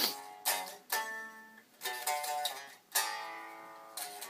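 Guitar played unaccompanied: chords and ringing harmonics struck roughly once a second, each left to ring on.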